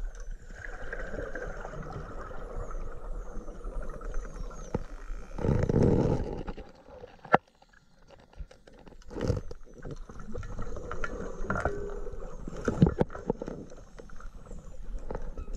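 Underwater sound of dolphins: thin, high whistles gliding up and down, with scattered sharp clicks. A burst of low rumbling noise is the loudest thing, about six seconds in.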